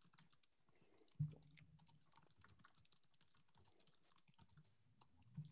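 Faint typing on a computer keyboard, quick irregular key clicks, with one soft thump about a second in.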